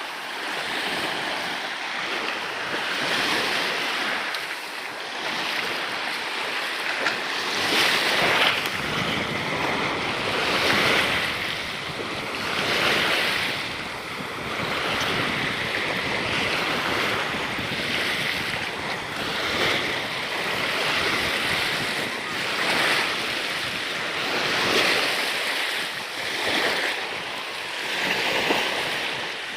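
Sea water rushing and splashing against a sailing kayak's hull, surging every two seconds or so, with wind buffeting the microphone.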